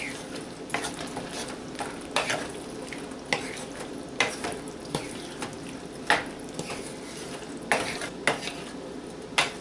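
A spoon stirring chickpeas and potatoes into a thick masala gravy in a pan, scraping and knocking against the pan about once a second, over a steady sizzle of the cooking sauce.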